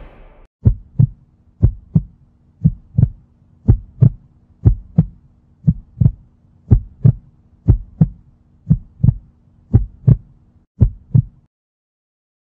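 Heartbeat sound effect: paired low lub-dub thumps repeating about once a second over a faint hum, stopping about a second before the end.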